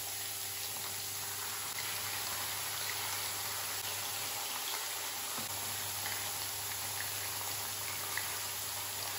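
Masala-coated fish slices shallow-frying in oil: a steady sizzle with scattered small pops while the pieces are turned over in the pan.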